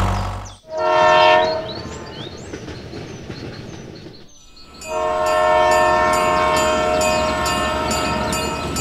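A low motor hum cuts off, then a short train-horn blast sounds. After a quieter pause comes a long, steady horn blast over a regular clickety-clack of about two clicks a second, the sound accompanying a toy steam train running on its track.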